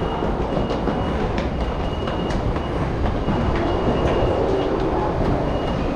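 Tokyo Metro Marunouchi Line subway train running at the platform, a steady deep rumble echoing in the underground station. Short high beeps repeat about once a second over it, with faint footstep clicks.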